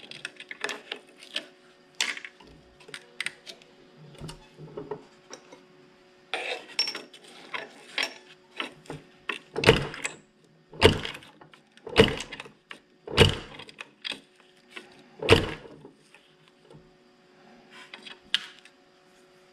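Homemade murrini cutter chopping a glass cane into slices: a run of sharp snaps and clicks, five of them much louder and about a second apart in the middle, with lighter clicks and clinks of glass between.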